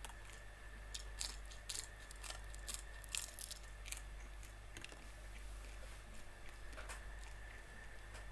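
Close-miked mukbang chewing of cooked prawns: crisp crunches and clicks of shell, thickest in the first half, then sparser, slower chewing.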